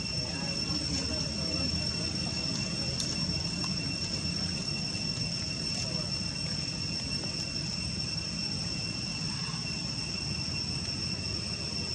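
Insects droning in the forest: one unbroken high-pitched whine with a second, lower steady tone beneath it, over a low steady rumble.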